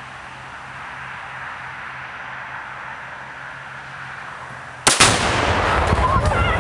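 A rifle shot setting off a one-pound charge of Tannerite inside an old dishwasher: one sudden loud blast about five seconds in, followed by a long rolling rumble of echo.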